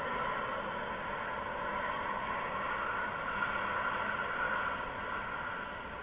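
Steady static-like hiss with no distinct events, dropping slightly in level near the end.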